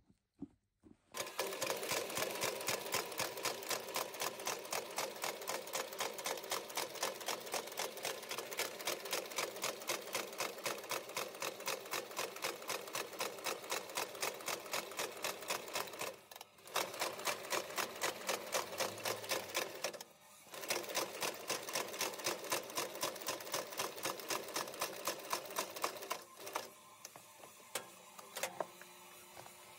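Industrial shoe sole-stitching machine sewing through a sole with heavy thread: a rapid, even clatter of about four stitches a second. It breaks off briefly twice, stops about 26 seconds in, and a few separate clicks follow.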